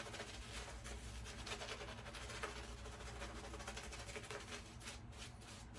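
Shaving brush working wet shaving-soap lather: a faint, steady scrubbing with many fine ticks throughout.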